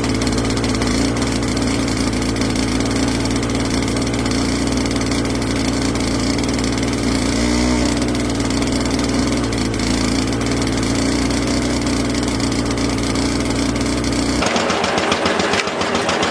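Vintage tractor engine running steadily. A little under two seconds before the end it gives way abruptly to another engine with a rapid, even firing beat.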